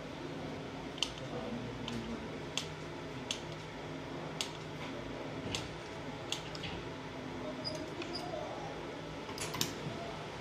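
Steady hum of a laser welding machine's cooling fans, with sharp clicks at irregular intervals, about one a second.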